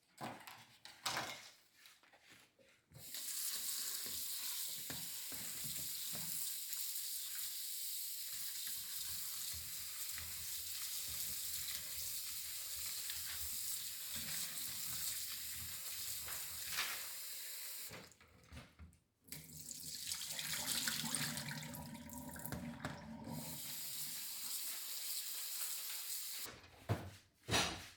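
Water tap running in a steady stream into a sink, stopping briefly about eighteen seconds in, then running again until shortly before the end. A few knocks come before the water starts.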